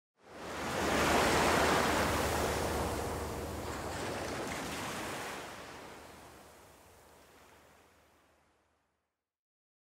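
A rush of ocean surf, as a sound effect, that swells in within the first second and slowly fades away, gone by about eight seconds in.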